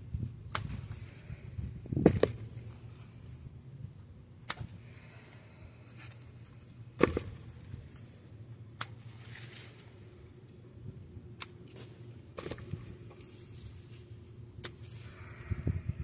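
Hand pruning shears snipping through grape-cluster stems: about eight sharp clicks spaced one to three seconds apart, the loudest about two and seven seconds in, with leaves rustling between the cuts.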